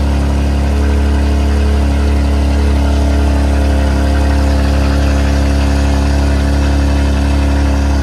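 BMW G87 M2's twin-turbo inline-six idling steadily with a deep, even drone from the exhaust.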